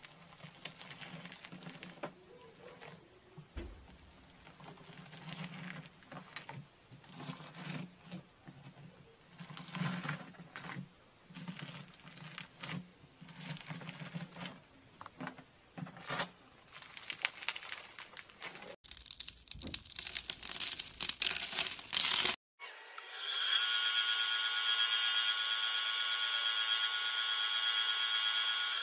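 A knife slicing through foam-bead slime (floam), the beads crackling and crunching in irregular bursts, followed by a louder run of crackling that cuts off abruptly. Then a wood lathe spinning a wood-and-resin blank runs with a steady high whine.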